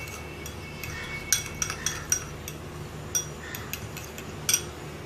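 Metal spoon stirring thick yogurt in a glass bowl, clinking irregularly against the glass rim and sides.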